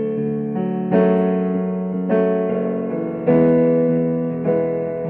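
Casio Privia PX-150 digital piano playing a slow chord progression: a new sustained chord is struck about once a second, each ringing and fading until the next.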